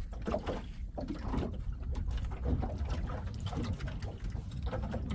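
Water sloshing and splashing against a small fishing boat at sea, with a constant low rumble of wind on the microphone and scattered short splashes and knocks.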